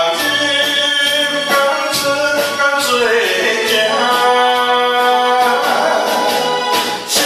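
Man singing into a handheld microphone over a karaoke backing track, his amplified voice holding long notes against a steady drum beat.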